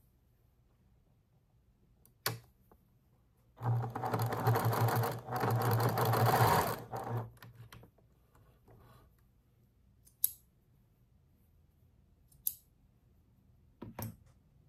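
Domestic electric sewing machine running for about three and a half seconds as it stitches a seam, with a brief pause midway. A few short clicks before and after.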